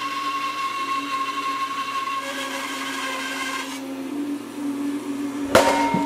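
Woodworking power tool running with a steady whine. About five and a half seconds in there is a sudden loud knock.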